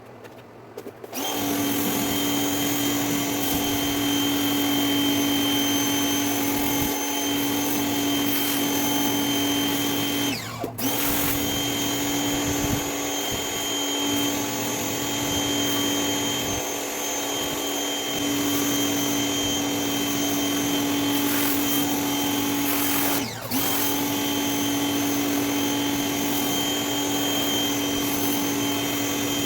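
Greenworks 2000 psi electric pressure washer starting up about a second in and running steadily with a motor whine and water spray. Twice it dips briefly, its pitch dropping and coming back up.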